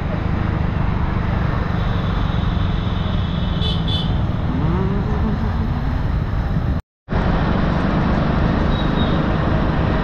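Steady road and traffic noise heard from a moving vehicle in city traffic, a dense rumble with a low engine hum under it. There is a short high beeping about four seconds in, and the sound cuts out completely for a moment about seven seconds in.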